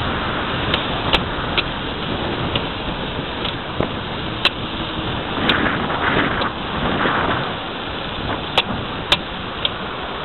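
Steady road noise of a car driving on a town street: tyre and engine rumble with a few sharp clicks, and a louder swell of noise about halfway through.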